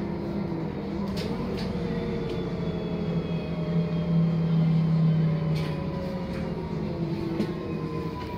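City bus heard from inside the passenger cabin while driving: a steady drivetrain hum with a thin whine that slowly falls in pitch, getting louder around the middle. A few sharp rattles come from the bodywork.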